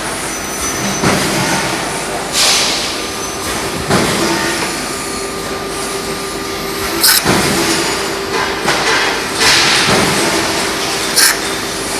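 Soyer stud welding machine in operation amid factory noise with a steady hum and bursts of hiss, with two sharp cracks as studs are welded, the second near the end.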